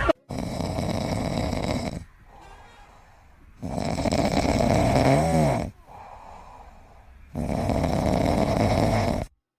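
Loud snoring, three long snores roughly three and a half seconds apart with quieter breaths between, the middle one rising and falling in pitch.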